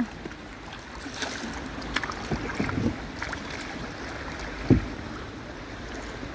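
Kayak paddling on calm water: the paddle blade dipping and splashing, with drips. A single dull knock about three quarters of the way through is the loudest sound.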